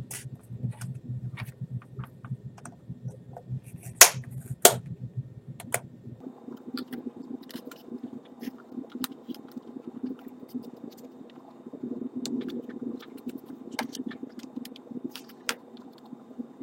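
Plastic bottom cover of a Lenovo T450s laptop being pried off: scattered clicks and snaps as the clips give, with two sharp snaps about four seconds in, over a low steady hum.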